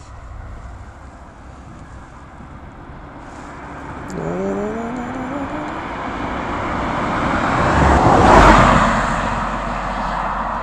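2018 Ford Fiesta driving past: its engine note rises about four seconds in, then engine and tyre noise swells to a peak as the car passes close, a little past eight seconds, and eases off as it drives away.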